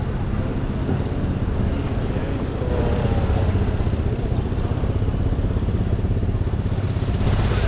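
A motor vehicle engine running steadily at low revs close by, a continuous low rumble over general street noise.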